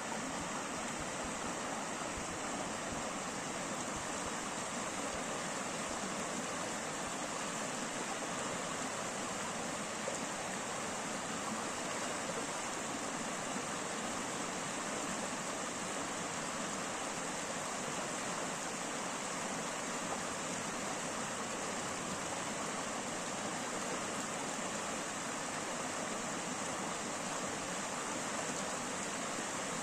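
Shallow rocky creek flowing over small rapids, a steady, even water sound.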